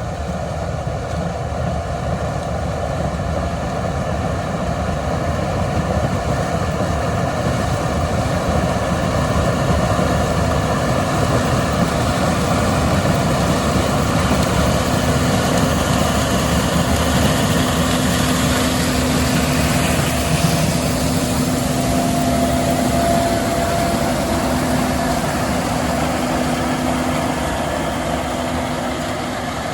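Case IH 7130 Axial-Flow combine, 350 hp, running steadily while harvesting corn with an 8-row corn head: a dense drone of engine and threshing machinery with a steady hum in it. It grows louder over the first ten seconds or so and eases off a little near the end.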